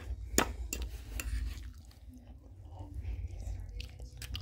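A metal fork clinking against a dish of stew: one sharp clink about half a second in, a lighter one just after, and a few small clicks near the end, over a low rumble.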